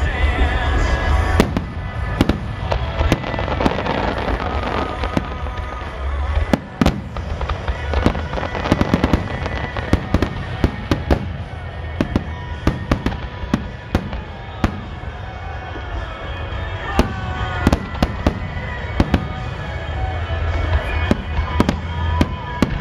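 Aerial fireworks display: many shells bursting in quick succession, a stream of sharp bangs and crackles over a continuous deep rumble.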